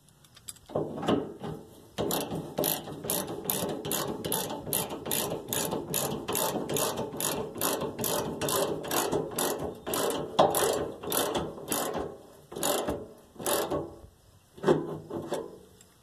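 Socket ratchet with a 9/16 deep-well socket clicking rapidly as it runs up the bolts holding a fuel tank in place, about three clicks a second. It pauses briefly near the end, then gives a couple more strokes.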